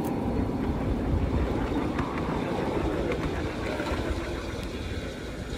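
Wagons of a 5-inch gauge garden railway train rolling over the track: a steady low rumble that slowly fades as the train moves away, with a few light clicks.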